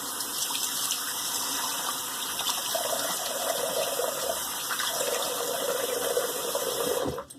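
Tap water running steadily into a sink while the face is rinsed, then shut off suddenly near the end.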